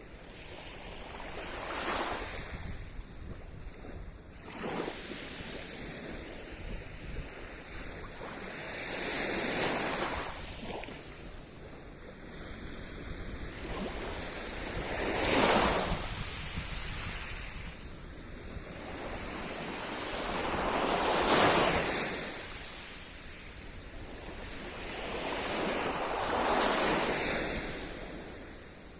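Sea surf: waves breaking and washing up the shore one after another, each a rushing swell that builds and fades, about six in all, the strongest about halfway through and again a few seconds later.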